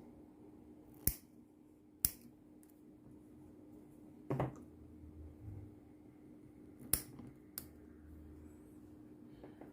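Five sharp clicks and taps of a small circuit board and tools being handled and fixed in place on a workbench. A steady low electrical hum runs underneath.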